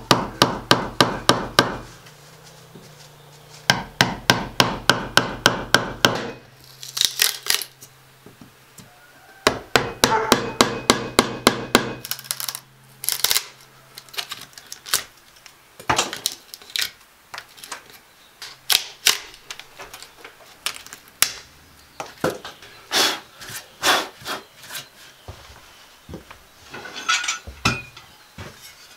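Hammer driving a wood chisel into a wooden post to cut a shallow recess. It comes as quick runs of sharp knocks, about four or five blows a second, with short pauses between runs, then slower, separate taps.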